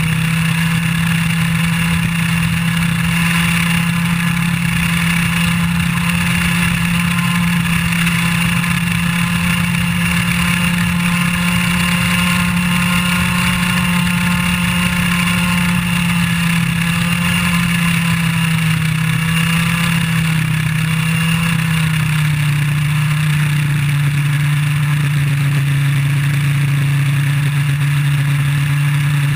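IAME Leopard 125cc single-cylinder two-stroke kart engine running hard near 10,000 rpm, heard from on board the kart. Its pitch creeps up slightly, then falls over the last third of the stretch as the revs drop.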